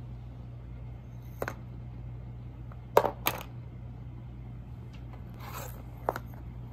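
Wooden popsicle sticks clicking and clattering as they are laid and dropped onto the cat and the cardboard. There is a light click about a second and a half in, two sharper clicks close together about three seconds in, a brief rustle, then another click near the end, all over a steady low hum.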